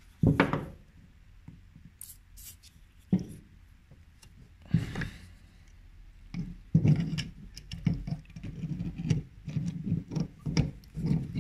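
Penetrating-oil aerosol spray on a rust-seized Mauser K98 rifle bolt, then a quick run of metal clicks and knocks as slip-joint water-pump pliers grip and work the bolt to free it.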